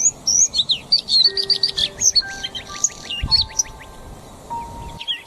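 Small songbirds chirping and twittering in quick, high, sweeping notes, with a fast trill in the middle. Soft background music with long held notes plays underneath from about a second in.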